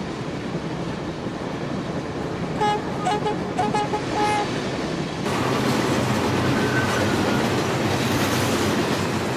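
Electric passenger train passing on the line, a steady rolling rush that grows louder about five seconds in. A few short pitched notes sound about a third of the way through.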